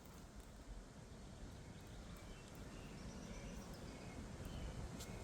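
Faint outdoor background noise with a few faint, short high chirps.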